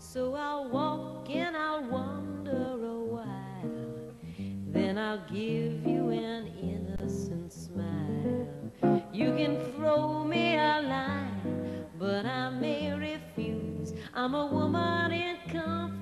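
A woman singing a melody to the accompaniment of a single archtop jazz guitar, which plays bass notes and chords beneath her voice.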